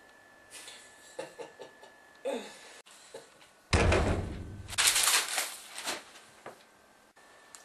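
A few small clicks, then a sudden loud bang with a deep low rumble about halfway through. A noisy crash follows about a second later and dies away.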